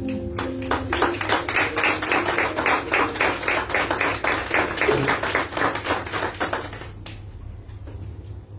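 Small audience clapping, a dense patter of applause that dies away about seven seconds in.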